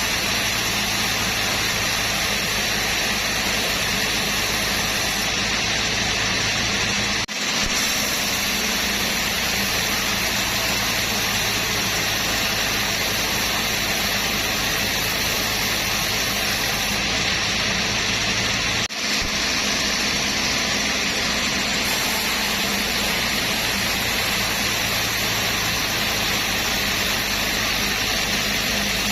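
Sawmill machinery running steadily, a dense mechanical noise over a constant low hum, dropping out very briefly twice.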